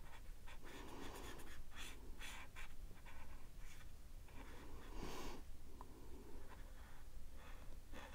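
Felt tip of a Sharpie marker rubbing across paper while coloring in an area, faint and scratchy, in repeated strokes with short pauses between them.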